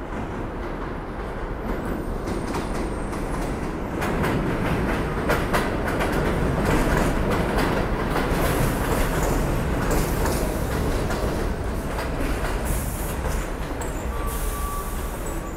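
New York City subway train running through the station, its wheels clicking over the rail joints. The noise builds about four seconds in and stays loud, with a thin high squeal coming and going near the end.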